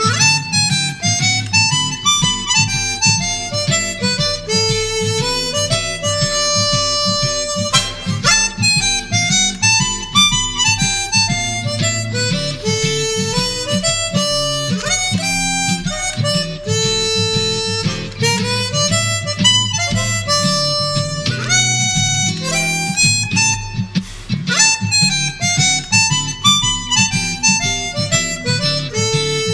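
Blues harmonica playing a lead line full of bent notes over a steady, rhythmic guitar accompaniment.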